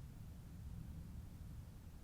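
Harbor Breeze Amberwood ceiling fan running, a faint, steady low rumble of the motor and moving air.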